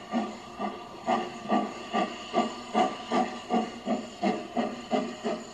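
Steam locomotive exhaust chuffing in an even beat, about three puffs a second, as the engine pulls its train away. It is heard as a 1970 field recording played back from a vinyl LP.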